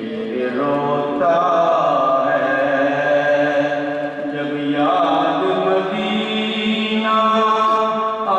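A man chanting into a microphone in long, drawn-out notes that shift in pitch a few times.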